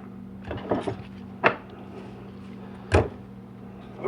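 Knocks and clatter of 4L80E transmission clutch parts being handled and set down during a teardown, with two sharper knocks about a second and a half and three seconds in.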